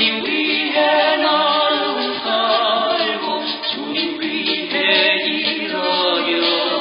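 Several voices singing together in harmony in a 1980s Korean gospel song.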